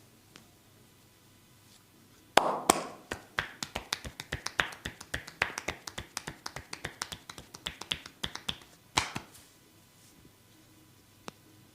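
Massage skin cracking: a rapid run of sharp snapping cracks from the barber's hands working the skin of the back, several a second for about seven seconds, with louder cracks at the start and near the end.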